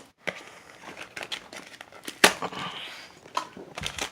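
Blind-box packaging being opened by hand: crinkling and rustling with scattered clicks, and one sharp loud snap or tear about two seconds in.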